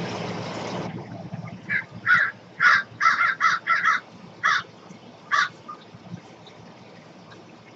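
A bird calling: a run of a dozen or so short calls between about two and five and a half seconds in. The first second holds a loud rushing noise.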